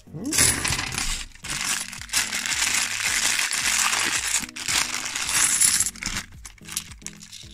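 A clear plastic bag of £2 coins rustling and crinkling as it is handled, with the coins clinking inside it. The rustle stops about six seconds in.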